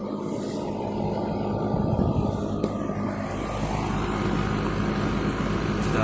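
A 2014 Goodman 2-ton, 13 SEER central air conditioner condensing unit running: its fan blows air steadily over a low, steady hum from the compressor. About three seconds in, the low rumble of the airflow grows stronger.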